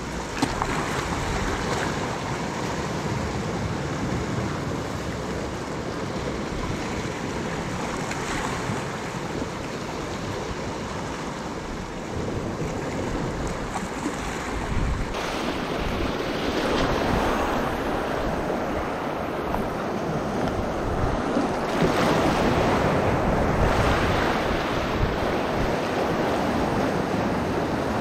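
Sea waves washing and breaking over shoreline rocks, with wind buffeting the microphone. The surf grows nearer and louder about halfway through.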